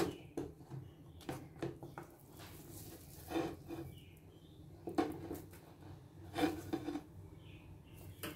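Spatula scraping and knocking against a non-stick pan and a steel plate while a thick coconut barfi mixture is scraped out of the pan onto the plate: a series of irregular scrapes and knocks, the sharpest right at the start.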